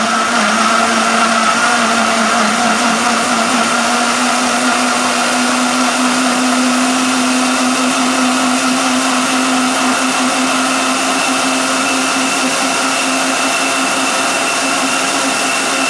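Countertop blender running at full speed, puréeing chunks of tomato, green bell pepper and cilantro with a little water. The motor hum rises slightly in pitch over the first few seconds as the chunks break down, then holds steady.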